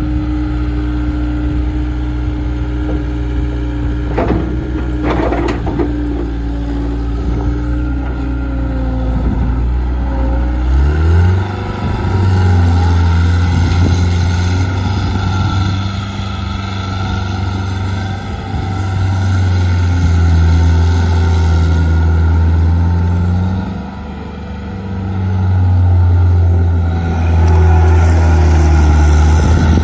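John Deere 323D skid steer loader's diesel engine running, first at a steady idle, then throttled up sharply about a third of the way in to a higher speed that wavers under load, easing off briefly near the end before coming back up. Two sharp knocks sound early on, while it idles.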